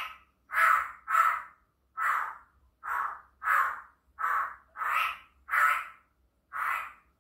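Black-throated laughingthrush (poksay Hongkong) giving a run of about ten short, harsh, caw-like calls, roughly one every half second to a second.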